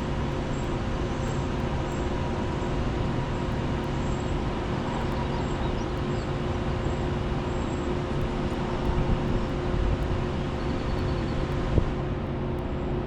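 Steady electrical and mechanical hum with road-traffic noise, several steady tones over an even rushing background, and a single sharp click near the end.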